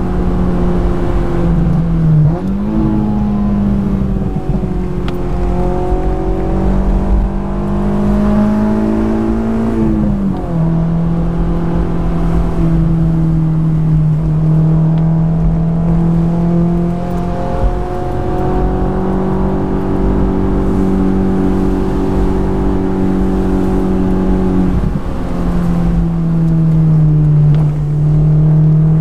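Honda S2000's 2.2-litre four-cylinder engine running hard on a twisty road, its note holding steady for stretches and dropping or rising several times as the revs change with gear changes and throttle. Steady wind and road rush underneath, open-top.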